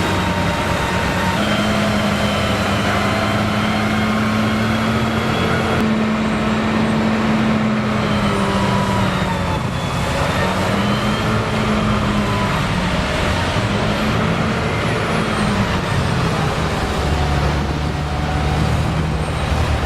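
Heavy diesel engines of snow-clearing equipment running hard: a truck-loading snow blower casting snow into a dump truck, a steady loud engine note over a continuous rushing hiss. The engine pitch sags and recovers a few times, dropping noticeably near the end.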